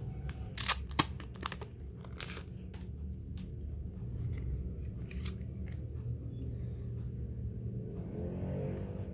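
Crinkly packaging being handled: a cluster of sharp crackles in the first two and a half seconds, then a few fainter ones, over a steady low hum.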